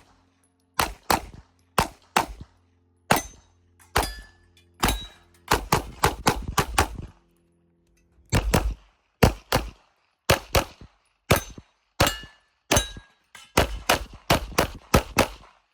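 Handgun fired rapidly through a practical-shooting stage: sharp shots, many in quick pairs, in strings separated by short pauses, with a longer gap about seven seconds in.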